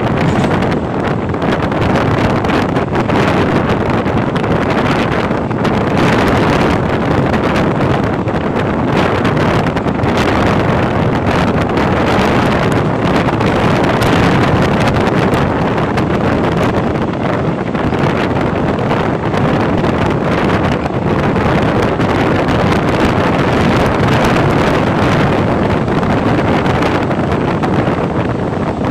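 Wind buffeting the microphone at an open carriage window, over the steady rumble and clatter of a passenger train running on the rails.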